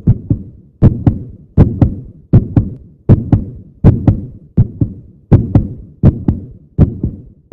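Heartbeat sound effect: paired lub-dub thumps repeating steadily about every three-quarters of a second, roughly 80 beats a minute.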